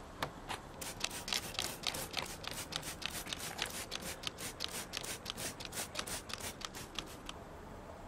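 Plastic trigger spray bottle squirting soapy water onto a tyre, pumped rapidly at about four to five sprays a second, each squeeze a short hiss; the spraying stops near the end.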